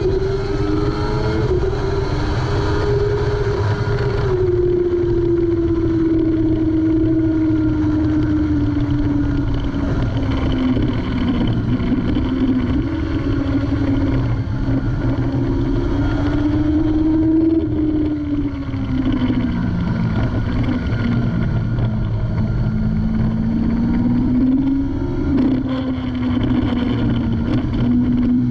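Kawasaki ZX-6R 636 inline-four engine running hard on the move, heard from onboard. Its pitch sags and recovers several times as the rider brakes and gets back on the throttle, over heavy wind noise on the microphone.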